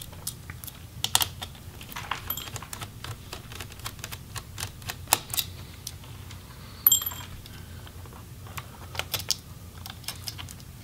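Small Phillips screwdriver backing out the fan-assembly screws of an Acer Aspire 5 laptop, with irregular light clicks and taps of the bit, the screws and the plastic chassis. There is a sharper metallic click with a brief ring about seven seconds in.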